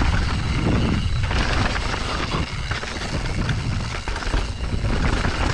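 Mountain bike ridden fast down a dry, rocky dirt trail: tyres rolling over dirt and stones with the bike rattling, over a steady low rumble of wind on the microphone.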